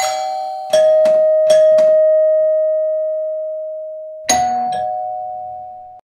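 Doorbell chimes ringing over and over: a run of quick chime strikes in the first two seconds, each tone ringing on and slowly fading, then another strike about four seconds in.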